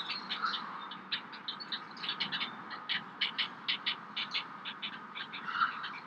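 Birds chirping and clicking in a rapid, uneven run of short high calls, several a second.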